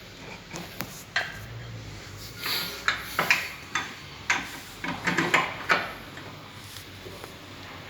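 Irregular clinks and knocks of metal hand tools and parts being handled during repair work, with a quick cluster about five seconds in and stopping about six seconds in.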